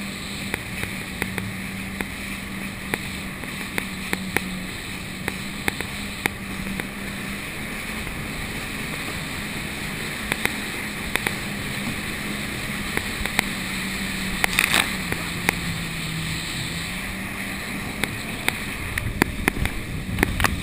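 Jet ski engine running steadily at speed under a haze of water spray and wind on the microphone, with frequent short taps and slaps. A louder burst of noise comes about two-thirds of the way through, and the engine note dips briefly just after.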